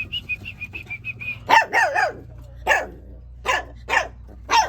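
A dog barking repeatedly: about six short, sharp barks spaced half a second to a second apart, after a quick run of high chirps in the first second.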